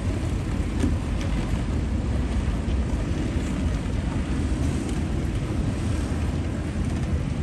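Steady city street ambience: a low rumble of road traffic with wind buffeting the microphone.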